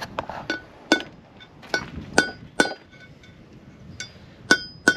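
Hammer striking a metal punch to drive a wheel bearing's outer race (cup) out of a caravan wheel hub: about nine sharp metallic taps at uneven intervals, each ringing briefly.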